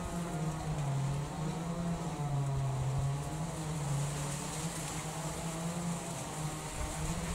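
Diesel-electric locomotive approaching slowly, its diesel engine running with a steady low drone that shifts slightly in pitch.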